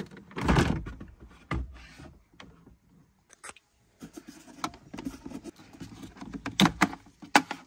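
Clicks, knocks and rattles of plastic dashboard trim being handled as the glovebox of a Skoda Fabia III is taken out. Two sharp clicks near the end come as a wiring connector is worked loose.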